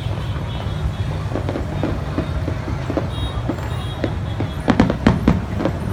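Aerial fireworks bursting with scattered crackles over a steady low rumble, and a quick run of louder bangs about five seconds in.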